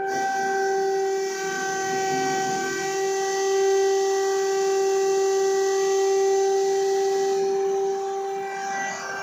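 Hydraulic hoisting pump of a MacGregor ship's cargo crane whining at one steady pitch while it builds hoisting pressure of more than 400 bar: enough pressure to lift, so the fault lies elsewhere, in the overload protection.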